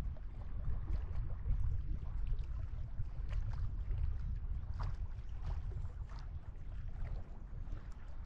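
Small waves lapping and splashing against the granite shoreline, many short irregular splashes, over a steady low rumble of wind on the microphone.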